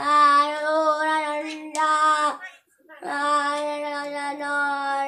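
A boy singing solo, holding long steady notes, with a short break about halfway through.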